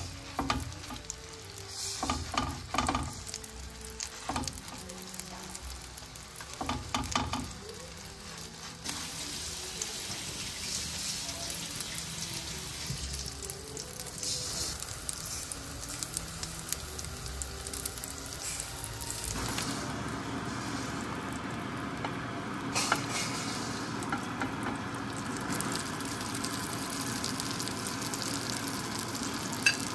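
Minced chicken patties frying in a greased ridged grill pan, sizzling steadily. In the first several seconds there are a few knocks and clinks of the metal ring mold and utensils being handled, and the sizzle gets louder about twenty seconds in.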